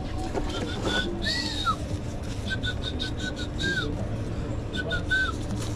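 A string of short, high whistled notes with a few quick up-and-down slides between them, over a steady low background noise and faint clicks.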